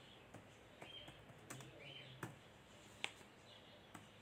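Near silence with a few faint, scattered clicks, the sharpest about three seconds in, and a few short, faint high chirps over low room tone.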